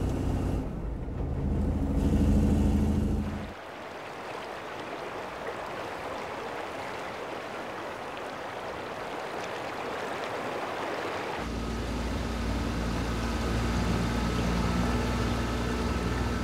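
Road train's engine running inside the truck cab, a steady low hum. About three and a half seconds in this cuts to an even rushing hiss, and about eleven seconds in a low motor drone with a faint steady whine takes over.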